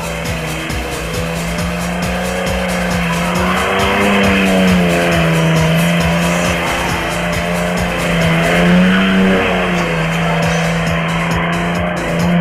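Chevrolet Opala engine held at high revs, its pitch wavering slightly, while the rear tyres spin and squeal as the car does donuts on asphalt.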